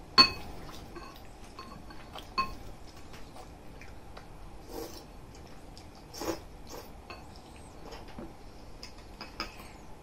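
Chopsticks and a spoon clinking and scraping against ceramic bowls during a meal. A sharp ringing clink comes right at the start and another about two seconds in, with lighter taps between. A short slurp of noodles follows a little past halfway.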